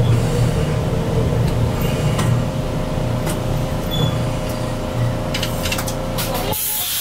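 Chikuho Electric Railroad 3000 series railcar braking to a stop at a station, with a low rumble, a steady motor hum and a few clicks. About six and a half seconds in the rumble drops away and a sudden hiss of air starts.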